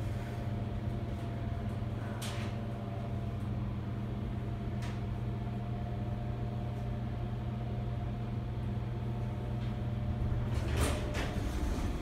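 Schindler 330A hydraulic elevator travelling down, a steady hum with a few fixed tones that stops about ten seconds in as the car levels at the floor. Near the end the sliding door clatters open.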